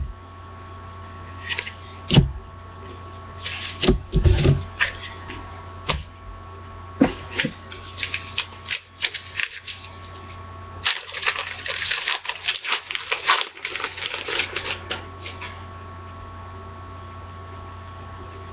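Trading cards being handled: scattered taps and knocks, then a dense few seconds of crinkling midway through as a pack wrapper is torn open. A steady electrical hum runs underneath.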